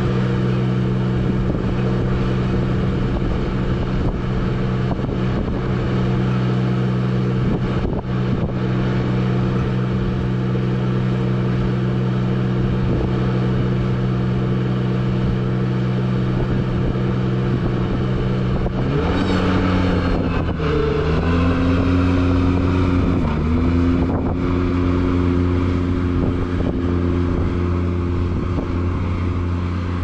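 Ventrac 4500Z compact tractor's engine running steadily while working the KX480 snowblower. About two-thirds of the way through, the engine note changes, dips in pitch twice, then settles to a new steady note.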